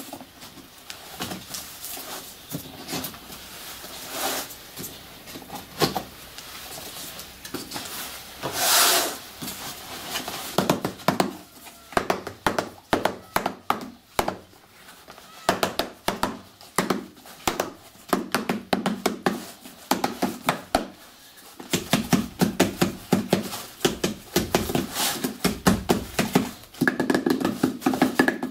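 Rapid, irregular knocking of a hand tool tamping down the contents inside a cardboard cylinder firework shell casing, starting about a third of the way in, with a brief lull.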